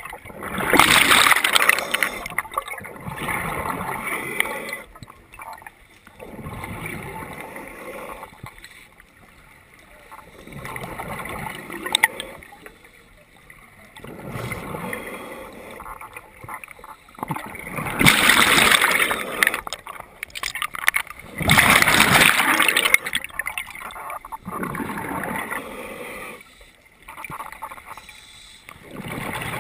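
Scuba diver breathing underwater through a regulator: bubbles gurgle and rush in bursts every few seconds, the loudest exhalations near the start and twice past the middle.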